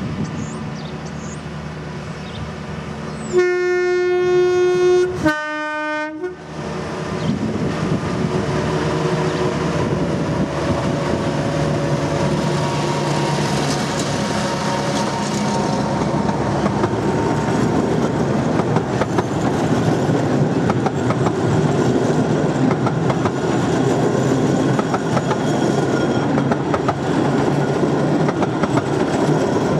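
A 15-inch-gauge miniature diesel locomotive sounds its horn twice, a long blast of about two seconds and then a shorter, lower one. It then runs past with its engine droning, followed by a train of coaches whose wheels clack steadily over the rail joints.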